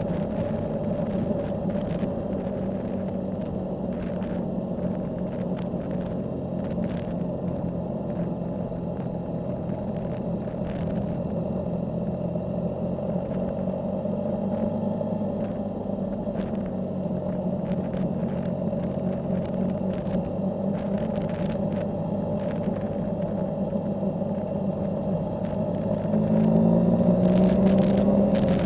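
Yamaha Tracer motorcycle engine running at a steady cruising speed, heard from the riding bike. Near the end the engine pitch rises and it gets louder as the bike accelerates.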